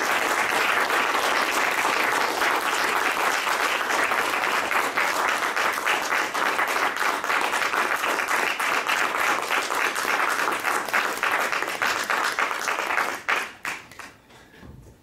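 Audience applauding: a steady, dense clapping that thins to a few scattered claps about thirteen seconds in and then stops.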